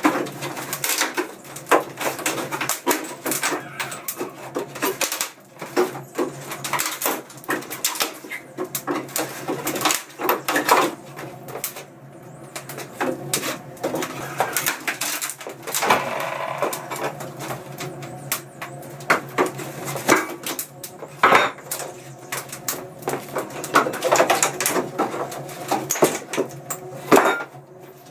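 Repeated knocks, clatter and creaking of a slatted wooden shipping crate being dismantled by hand, its slats and side panels pulled free, with a few squeaks along the way.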